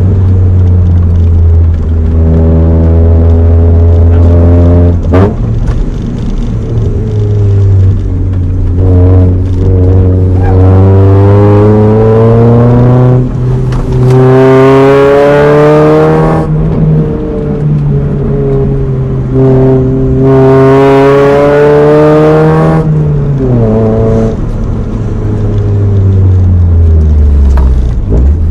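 Honda Prelude's swapped H23 four-cylinder engine accelerating hard through the gears: the revs climb over several seconds, dip sharply at each of about three gear changes, then fall away near the end as the car slows.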